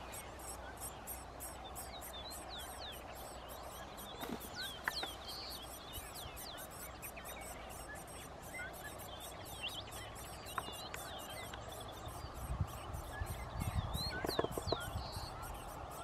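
Degu (Octodon degus) sentinel giving its alarm call: short high-pitched chirps repeated steadily, about three a second.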